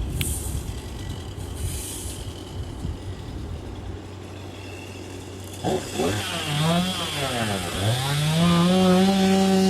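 A steady low machine rumble, then, a little past halfway, a chainsaw engine revving up and down several times before it is held at high revs. The sound stops abruptly at a cut.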